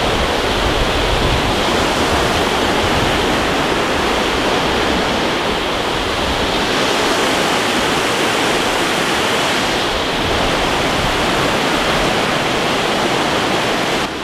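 A fast mountain river rushing over rocks in whitewater rapids: a loud, steady roar of water.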